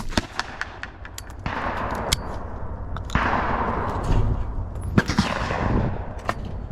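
Shotgun fired at a clay target right at the start, a sharp loud report, followed by another loud report about five seconds in, with fainter cracks and clicks between.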